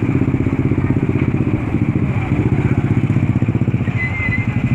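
An engine running steadily at close range, with rapid, even firing pulses low in pitch. A brief high squeak sounds about four seconds in.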